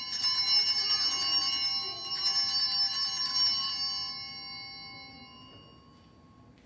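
Altar bells rung at the elevation of the chalice during the consecration at Mass: a bright, many-toned ringing, rung again at the start and about two seconds in, then dying away over the next few seconds.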